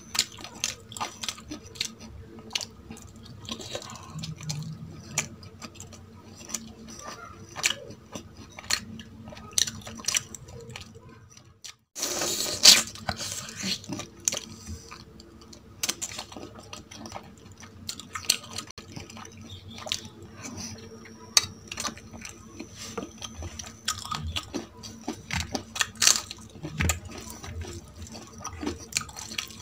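Close-up eating sounds: wet chewing and many small mouth clicks and smacks as a person eats. There is a brief break about twelve seconds in, followed by a short louder rustle.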